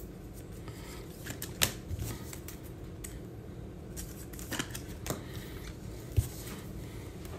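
Trading cards and clear plastic card holders being handled and set down on a tabletop mat: faint scattered clicks and light rustling, with a few sharper taps.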